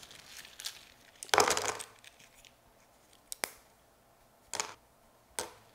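Dried red ginseng slices being handled and dropped into a paper bowl on a kitchen scale: a brief rustling crunch about a second and a half in, then three short clicks and taps as pieces land.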